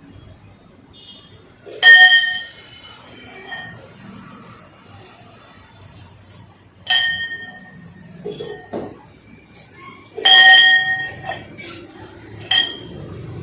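A brass bell rung by its brass clapper four separate times, each strike a bright chime with several overtones that dies away within about a second; the third ring lasts longest and the last is weaker. Small handling knocks come between the rings.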